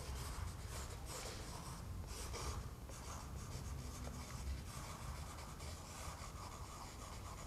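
A pen tip scratching across the raw canvas on the back of a stretched painting as a name and 'Z.T.' are written on it, in a run of short strokes.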